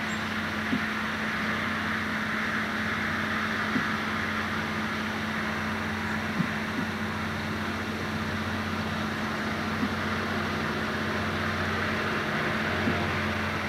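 Diesel-electric freight locomotives, a GE unit among them, working hard under throttle as the train gets under way: a steady, deep engine drone with a low hum, broken by a few brief sharp clicks.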